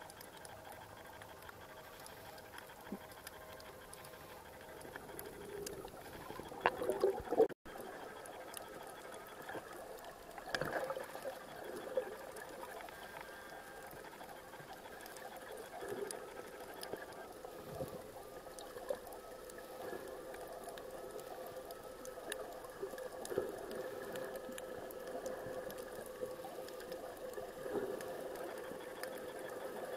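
Muffled underwater sound picked up by a submerged camera: a steady hum with scattered clicks and crackles throughout. A louder cluster of knocks comes about six to seven seconds in, then the sound drops out for a moment.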